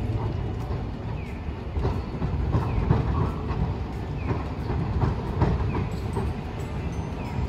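Hiroshima Electric Railway Green Mover LEX low-floor tram rolling away over the street track, its wheels knocking irregularly over rail joints and crossings, over a low rumble of road traffic.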